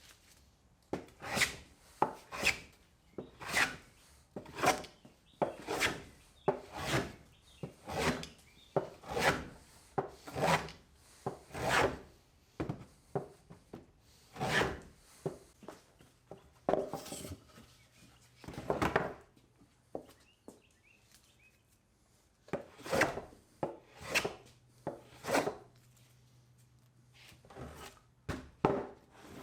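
Repeated strokes of a hand tool across a sinker cypress board, about one a second for most of the stretch, then a short pause and a few more strokes near the end.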